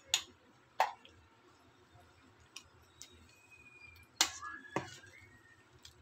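Metal spoon and ladle clinking against a steel rice-cooker pot: two sharp taps near the start, then stirring through watery rice, dal and vegetables, with a louder clink about four seconds in.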